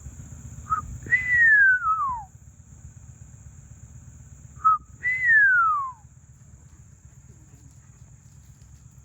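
A person whistles twice, each time a short note followed by a long downward slide in pitch, over a steady high-pitched cricket trill.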